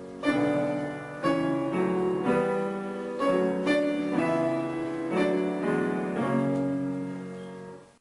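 Piano music: notes and chords struck about every half second to a second, each ringing on and dying away, fading toward the end and then cutting off abruptly.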